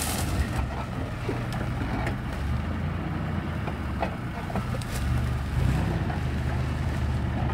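A 4x4 SUV's engine running at low revs as the vehicle crawls slowly off-road through tall grass, with the hum swelling a little about five seconds in. Occasional light clicks and knocks sound over it.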